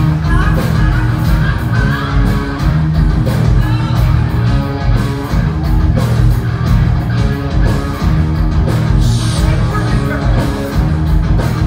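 Live rock band playing loud, with drums and electric guitar.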